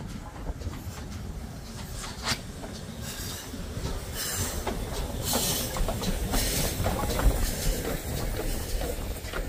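GWR 4200 Class 2-8-0 tank engine No. 4277 passing close by at low speed, its wheels clicking and rumbling over the rails. About halfway through it gives three hissing blasts of steam roughly a second apart.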